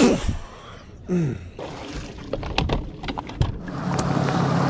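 A sudden thump with a falling tone, another about a second later, and scattered clicks and knocks of handling on the boat; from about three and a half seconds in, the steady low hum of the bass boat's motor running.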